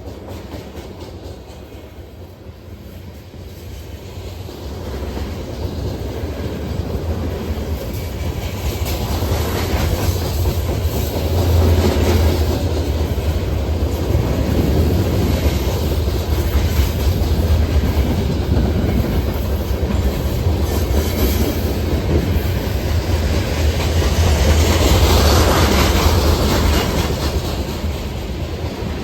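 Norfolk Southern freight train rolling past, its wheels clattering over the rail joints. It grows louder over the first dozen seconds, then stays loud as the cars go by.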